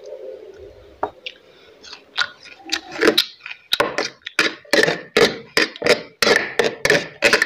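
Steel spoon clinking and scraping against a steel plate while scooping fried rice, in a quick run of sharp clicks about four a second from about two seconds in.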